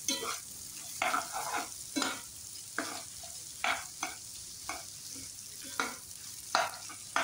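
Spatula stirring and scraping minced mutton and chopped guar (cluster) beans frying in oil in a karahi: about ten irregular scraping strokes over a steady light sizzle.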